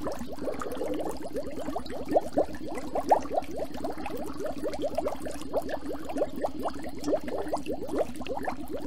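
Air bubbles gurgling underwater, heard through a submerged camera: a rapid, steady run of short rising blips, several a second.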